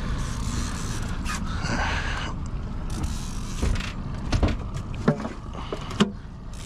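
Knocks and thuds of a large California halibut being lifted off the measuring board and set into the boat's fish hatch: about five sharp knocks over the second half, with a brief swish before them, over a steady low rumble.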